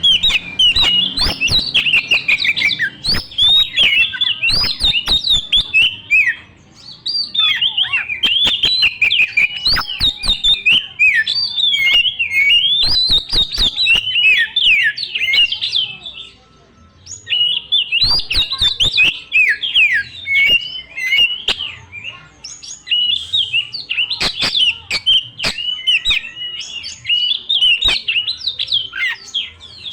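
A young wild Oriental magpie-robin (kacer) singing a loud, fast run of varied whistles and chirps packed with mimicked phrases. Sharp clicks are mixed among the notes, and the song breaks off briefly about six seconds in and again near the middle.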